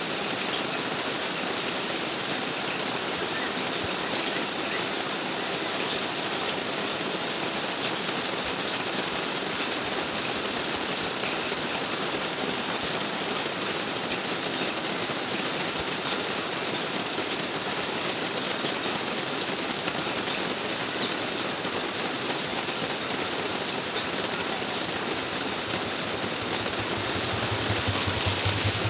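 Heavy, steady rain hissing on a wet road. Near the end a motorbike rides past with a low engine hum.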